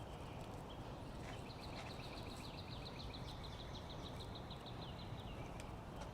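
A songbird singing a long run of quick repeated notes, about five a second, lasting a few seconds, over a faint low rumble.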